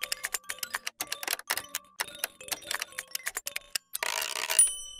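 Typewriter sound effect: rapid, uneven key clacks for nearly four seconds, then a short carriage-return zip that ends in a bell ding near the end.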